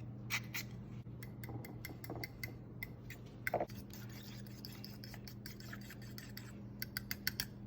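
Scattered light clicks and taps from kitchen utensils and containers being handled, with a quick run of clicks near the end, over a steady low electrical hum.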